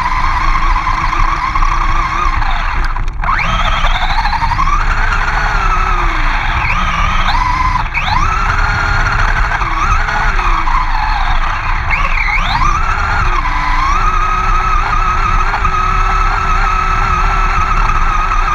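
Motor of a 1/10-scale RC monster truck heard on board while it drives fast over grass, its whine rising and falling with the throttle. The pitch drops sharply and climbs back about three times, over a steady low rumble of wheels and wind.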